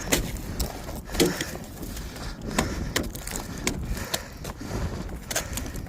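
An iced-up lid being hammered and pried open: a string of irregular sharp knocks and cracks as the ice breaks away.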